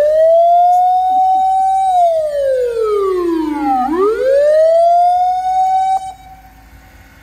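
Siren on a small Japanese fire truck wailing: it holds a high pitch, slides down over about two seconds, rises again, and cuts off suddenly about six seconds in.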